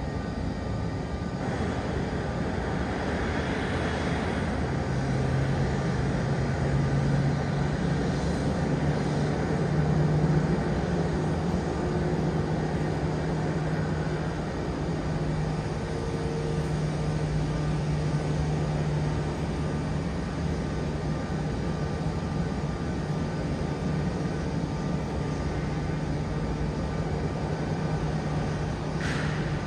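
Steady rumble of a jet airliner and its towing tug on the apron during pushback, with a low, even hum that comes in about five seconds in and holds.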